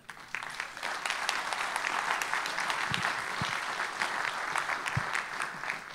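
Audience applauding: many hands clapping at once. It builds within the first second, holds steady, and dies away near the end.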